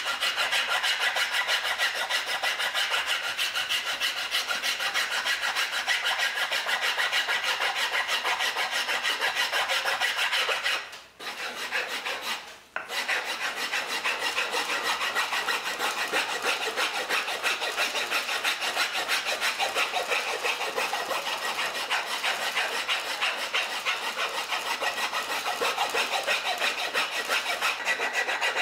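A steel file rasping along a wooden axe handle, shaping it. The strokes come fast and even, with two short pauses near the middle.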